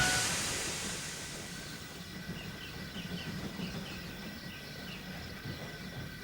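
Steam locomotive letting off steam: a loud hiss that fades away over about two seconds. It leaves a low steady rumble with a few faint high chirps.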